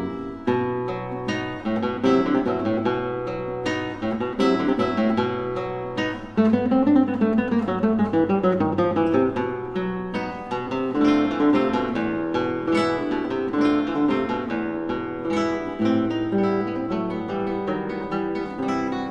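Background music: an acoustic guitar playing a quick run of plucked notes and strummed chords.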